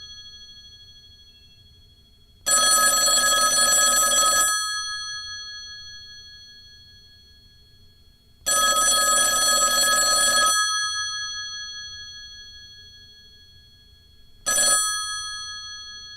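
Telephone bell ringing in bursts of about two seconds, repeating every six seconds, each ring trailing off as the bells keep sounding. There are two full rings, then a brief third ring near the end.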